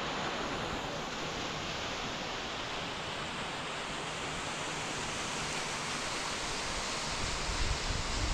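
Steady, even rush of fast-flowing water, such as a waterfall or rapids running high after rain.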